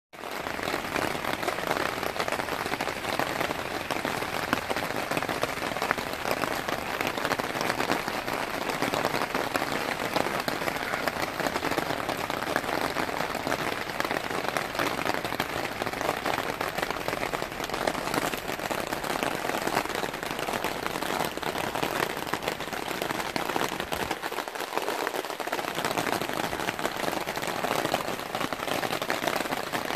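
Steady rain falling on the fabric tops of pop-up canopies, a dense, even patter of many small drops.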